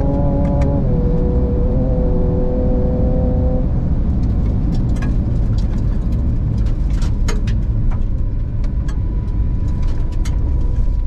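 Ford Ranger Raptor's V6 engine running under load inside the cabin. Its pitch drops slightly about a second in, and after about four seconds the engine note gives way to a steady low rumble of tyres and road, with scattered sharp clicks.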